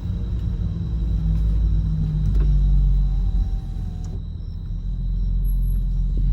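Audi B9 S4's turbocharged 3.0-litre V6 running through a cat-delete exhaust, a deep low rumble with a couple of sharp crackles about two and a half and four seconds in. The crackles come from its Stage 1 ECU tune.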